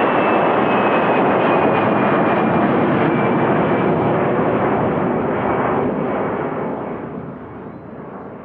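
Airbus A320-200's twin jet engines at takeoff power as the airliner climbs away, a steady loud jet noise with a faint high whine sliding slowly down in pitch. The sound fades over the last couple of seconds as the aircraft recedes.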